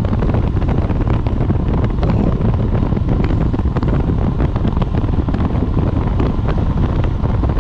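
Wind buffeting the microphone on a moving motorcycle: a loud, steady rush of noise with the engine's drone underneath.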